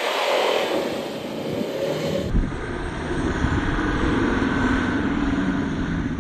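Volvo XC70's five-cylinder diesel driving hard through deep snow. For the first two seconds the engine note falls as the car goes past; then, at an abrupt cut, a steady engine drone with a heavy low rumble takes over.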